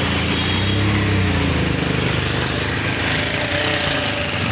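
A small vehicle engine running steadily close by. Its pitch rises and falls slightly about a second in, over a steady hiss.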